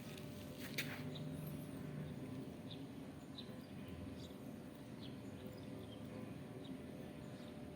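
Faint background noise with scattered short, high bird chirps or ticks and a single click near the start.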